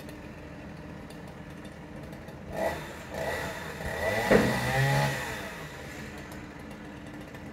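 The pile driver's engine revs up for about three seconds over its steady idle, with a single sharp knock at the peak, about four seconds in, before it drops back to idle.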